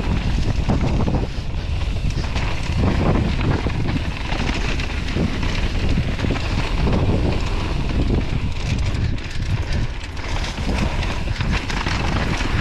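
Wind buffeting the rider-mounted camera's microphone, mixed with tyre noise and rattling from an electric mountain bike descending a dry dirt trail at speed.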